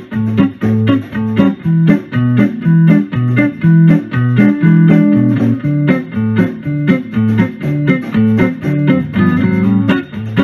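Background music: plucked guitar over a bass line, with a steady beat.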